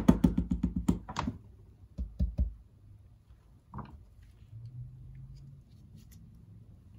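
A quick run of clicks, about eight a second, as a part is worked out of a bicycle rear shock during disassembly. Then a few separate knocks of parts and tools on the workbench.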